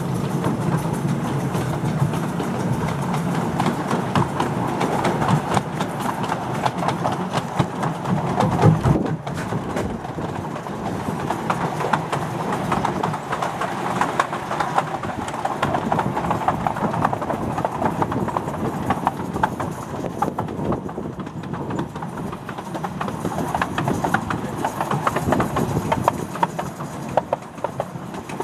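Miniature steam railway carriages running along the track: steady rumble with rapid clicking and rattling from the wheels on the rails.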